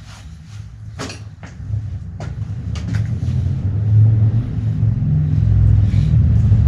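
A low rumble that grows steadily louder from about a second and a half in. A few light clicks come in the first three seconds as a bicycle wheel and its tyre are handled.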